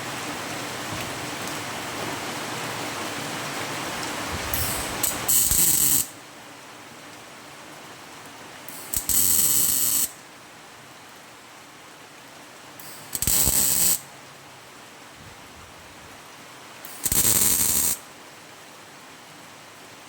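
MIG welder laying four short tack welds on sheet-steel repair panel, each a crackling, sizzling burst of about a second, spaced roughly four seconds apart. Rain hisses on the workshop roof before the first tack.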